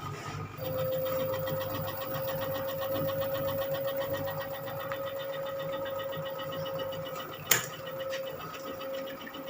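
LG inverter front-loading washing machine's direct-drive motor running: a steady electric whine sets in under a second in over a low hum and a fast, fine rattle, with one sharp click about three quarters of the way through.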